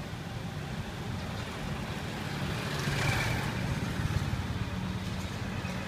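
Steady low rumble of street noise, with a brief swell of hiss about three seconds in.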